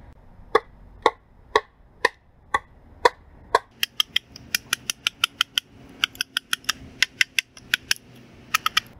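Hatchet chopping into a wooden pole to cut a notch. The blows come about two a second at first, then quicker and sharper from about four seconds in.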